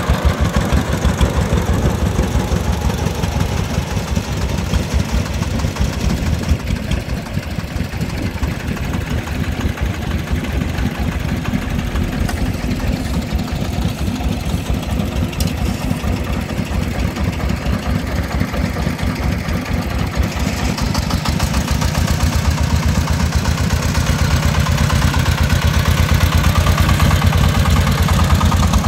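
Single-cylinder diesel engine of a công nông three-wheeled dump truck running with a fast, even chugging. It grows louder over the last several seconds as the truck comes close.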